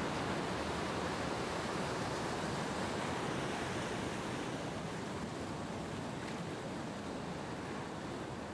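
A steady rushing noise with no distinct events, slowly fading.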